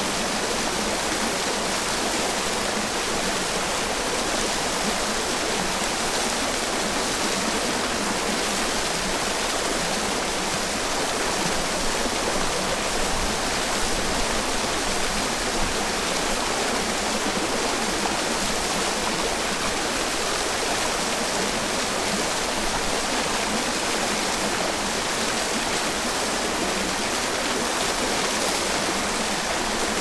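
Small mountain waterfall falling steadily, with the stream trickling below it: an even, unbroken rush of water.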